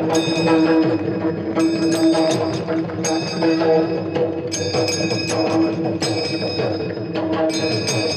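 Kirtan accompaniment without voice: a harmonium holds a steady note while hand cymbals (taal) clash in quick groups about every second and a half, over a steady drum beat.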